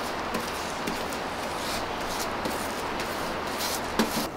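Paintbrush strokes working thick Lizard Skin sound deadener onto foil-faced Kilmat mat and bare van floor metal: a series of short scratchy brushing sounds, with a sharper knock about four seconds in, over a steady background hiss.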